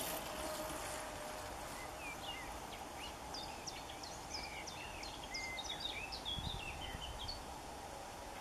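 Common chiffchaff and Eurasian blackcap singing: a few high notes about two seconds in, then a fast, varied warble of high notes for about four seconds, over steady background noise.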